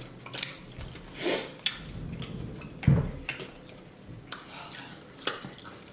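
Wet eating sounds of seafood boil and fries: chewing, lip-smacking and finger-licking, with scattered small clicks and a louder smack about three seconds in.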